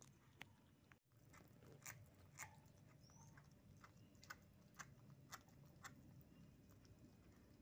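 Kittens chewing and smacking on sticky steamed shark meat in a metal bowl: faint, irregular wet clicks.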